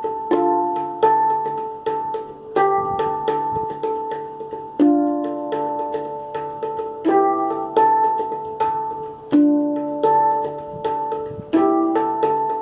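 Hang drum (handpan) played by hand: a steady stream of struck notes, several a second, each ringing on and overlapping the next.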